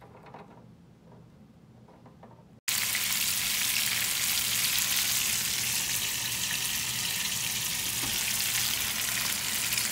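Sausage patties sizzling in hot oil in a frying pan: a loud, steady hiss that starts abruptly about two and a half seconds in, after a quiet start.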